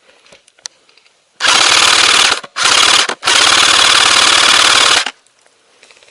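Airsoft rifle firing on full auto in three bursts close to the microphone: about a second, a short half-second burst, then a longer burst of nearly two seconds, a fast rattle of shots.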